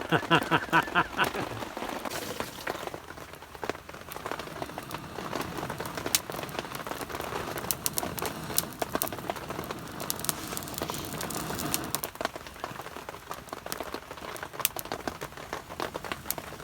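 Steady rain pattering, with many sharp ticks of drops scattered through it.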